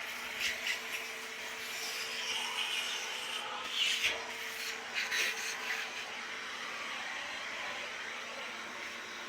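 Vacuum cleaner running steadily while sucking up dust, with a few brief scraping bursts as the nozzle rubs over surfaces.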